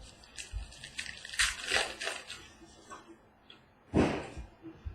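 Rustling and soft scraping of trading cards and pack wrappers being handled, in irregular short bursts, with one louder, sharper rustle about four seconds in.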